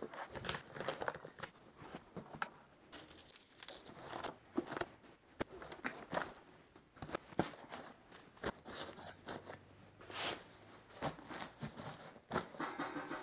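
Gear being packed by hand into a semi-rigid ATV storage bag: irregular rustling of fabric and plastic with scattered light knocks and clicks as items are set in place.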